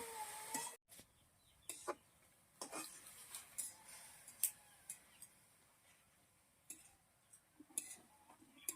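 Faint, scattered clinks and ticks of a metal spatula against a kadai as greens are stirred, a few knocks a second at irregular spacing.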